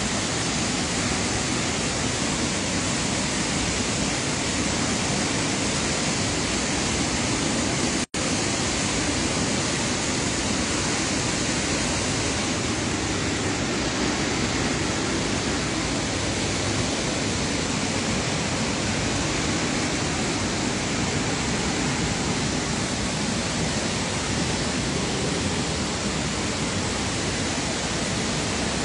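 Water from an overflowing dam pouring over its spillway: a steady, loud rush of falling water. There is a momentary dropout in the sound about eight seconds in.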